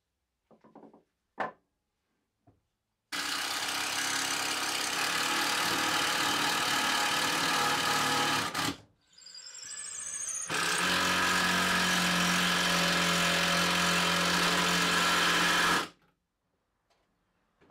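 Ryobi cordless drill/driver running in two long steady runs of about five seconds each, driving screws into solid black walnut. A few light knocks of wood being handled come before the first run.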